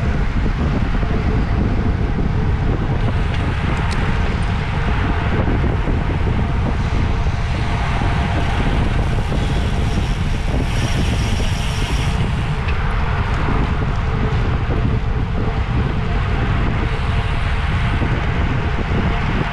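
Wind buffeting a microphone carried at speed in a bicycle race: a steady low rumble with a rushing noise that swells now and then.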